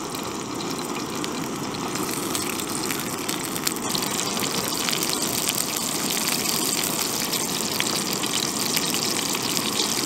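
Screw-on gas cartridge stove burner running steady and loud under a frying pan; from about two seconds in, flattened bread dough frying in hot oil adds a sizzle that builds slightly.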